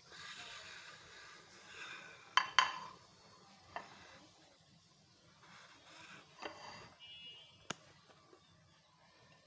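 Kitchen utensils and dishes clinking and knocking: two sharp clinks close together about two and a half seconds in, then a few lighter knocks.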